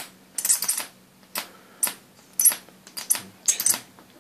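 ZVS-driven high-voltage Jacob's ladder, fed at about 21 volts, crackling in short irregular bursts about twice a second as each arc strikes across the rods, climbs and snaps out. A faint steady hum runs beneath.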